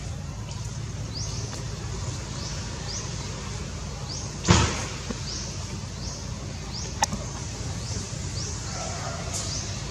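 Outdoor ambience: a steady low rumble with a short, high rising chirp repeating about every second or less. A single loud thump comes about four and a half seconds in, and a sharp click a few seconds later.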